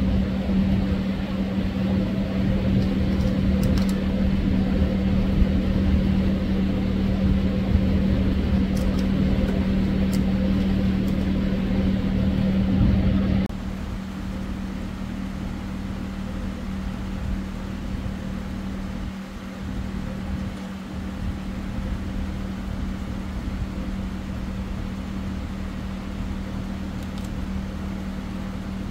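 Steady mechanical hum with a strong low steady tone, dropping abruptly in level about halfway through and continuing quieter.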